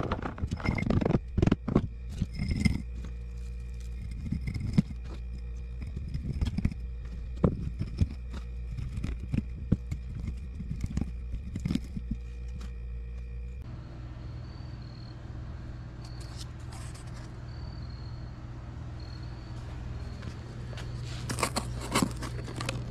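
Irregular clinks, knocks and scrapes of scrap copper windings being handled and packed into a small crucible. After about two-thirds of the way through, a steady low hum takes over, with a few knocks near the end as the crucible is set down into the furnace.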